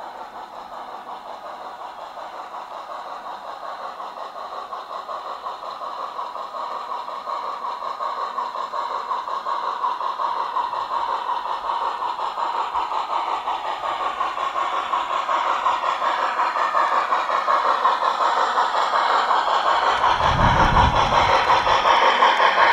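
Garden-railway model of steam locomotive 99 222 running towards the microphone with its hopper wagons, its steam sound and wheels on the track growing steadily louder as it approaches. A short low rumble comes near the end as it passes close by.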